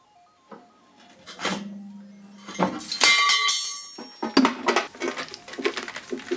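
Steel front-suspension parts of an Alfa Romeo 105 clanking as the lower arm is let down. A metal knock with a short low ring comes about a second and a half in, followed a second later by a louder metallic clatter that rings brightly, then a run of lighter clinks and taps. Faint music plays under the opening second.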